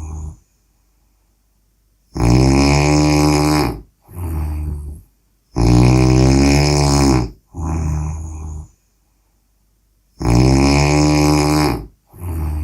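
A person snoring: three long, loud, rattling snores about four seconds apart, each followed by a shorter, quieter breath.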